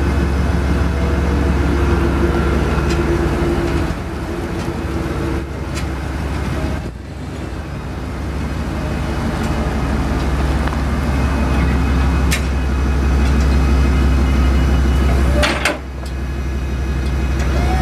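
1989 Chevrolet pickup truck's engine running steadily with a deep low hum, dipping briefly about three times, with a couple of sharp clicks.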